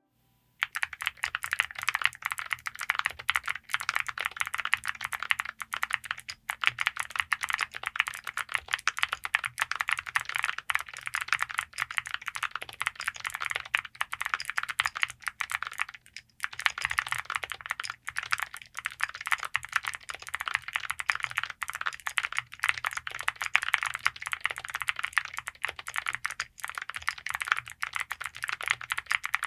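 Fast, continuous typing on a gasket-mounted TKD Cycle7 mechanical keyboard with Cerakey alumina-ceramic Cherry-profile keycaps. The keystrokes begin about half a second in and pause briefly about halfway through.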